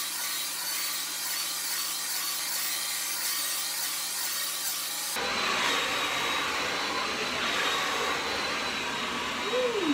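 Hot-air brush hair dryer blowing steadily as it is worked through long hair. About five seconds in the sound becomes fuller, with a steady high whine.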